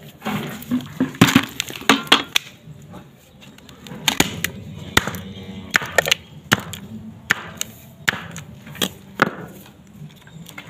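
Ivermectin deworming tablets being pressed out of their blister pack: a dozen or more irregular sharp snaps and crackles of the foil and plastic.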